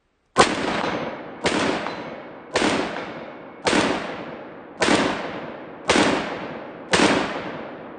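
AR-15 rifle with a heavy H2 buffer fired in slow semi-automatic shots, about one a second, eight in all. Each report rings out and dies away before the next.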